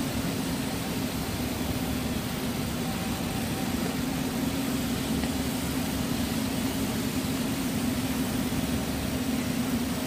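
Rubber hose extrusion line machinery running: a steady low hum over a broad even hiss, with no change from start to end.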